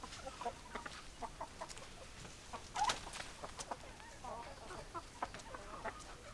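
Chickens clucking in short, scattered calls, with one louder, sharp squawk rising in pitch about three seconds in.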